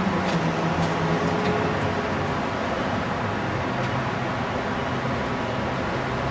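Steady engine rumble over a constant wash of noise. A low engine drone fades out about two seconds in.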